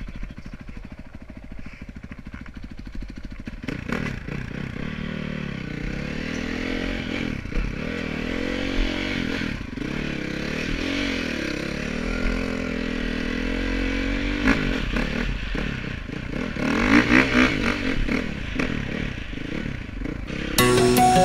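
Honda dirt bike engine heard from the rider's helmet: idling at first, then from about four seconds in revving up and down in repeated waves as the bike rides off. Music starts just before the end.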